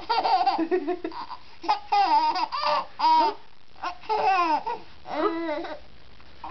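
Baby laughing in several bursts with short pauses between them.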